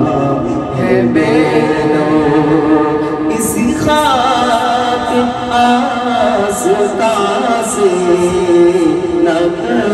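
A man singing an Urdu devotional song into a microphone, unaccompanied, with long held, ornamented notes and a sliding fall in pitch about four seconds in.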